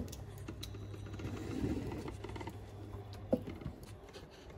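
Wooden spatula stirring a thick, simmering tomato-and-milk sauce in a frying pan: faint soft scraping with a light knock about three seconds in, over a steady low hum.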